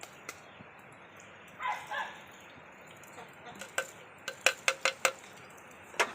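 A run of sharp kitchen clinks, as of a spoon tapping against a utensil, from about three and a half to five seconds in and once more near the end, while fenugreek seeds are added to hot cooking oil.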